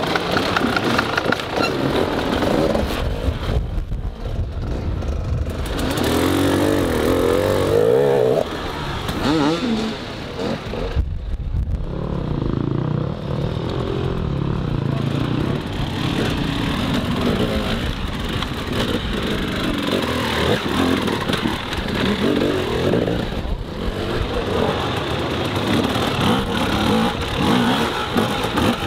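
Enduro dirt bike engines revving in uneven bursts, pitch rising and falling, as the bikes are worked up and over rock steps.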